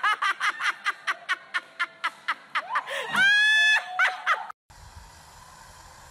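A person laughing hard in rapid, even bursts, rising into a long high-pitched squeal about three seconds in. About four and a half seconds in the laughter cuts off, leaving only a low steady rumble.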